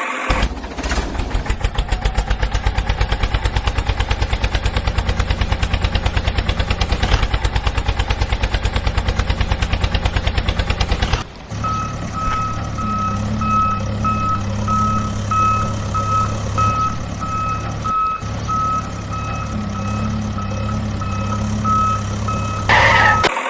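A vehicle engine running with a fast, even chugging pulse for about eleven seconds. It then gives way to a reversing alarm beeping about twice a second over a steadier engine hum, with a brief louder noise near the end.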